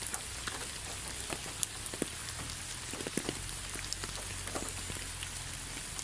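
Rain falling: a steady hiss with individual drops tapping irregularly, several a second.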